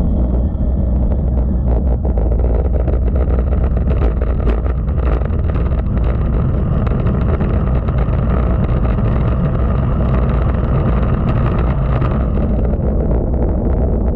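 Steady low wind rumble on the microphone of a camera mounted on a road bike at speed, with the hiss of tyres rolling on asphalt.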